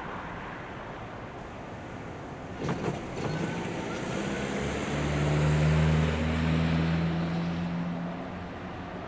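GP38 diesel locomotive approaching and passing, its engine drone swelling to a peak about six seconds in and then fading, with a couple of sharp clicks beforehand.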